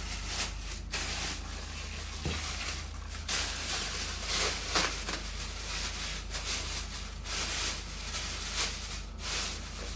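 Packaging rustling and crinkling in irregular bursts as the telescope's tripod stand is handled and unwrapped, over a steady low electrical hum.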